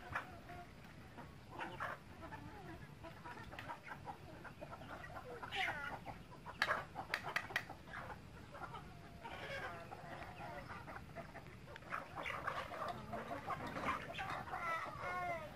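A flock of chickens clucking and calling in short, overlapping calls, with a few sharp clicks about halfway through.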